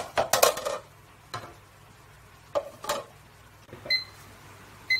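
Ceramic plates clattering and knocking against the bowls as the dough is covered, loudest in the first second, then a few lighter knocks. Near the end, short electronic beeps about a second apart.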